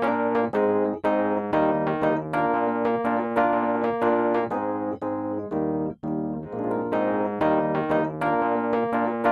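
Background piano-style keyboard music: a gentle tune of evenly repeated notes over held chords, with a brief pause about six seconds in.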